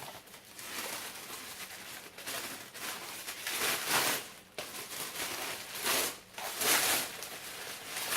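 Wrapping rustled and crinkled by hand as an item is unwrapped, in a run of uneven bursts, the loudest about four seconds in and again around six to seven seconds in.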